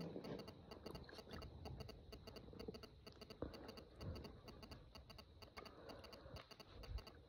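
Near silence: faint, even ticking several times a second over a soft rustle.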